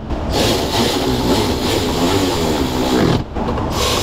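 Cordless ratchet running in 10 mm bolts, its motor going for about three seconds with a wavering pitch as the load changes, stopping briefly, then starting again near the end.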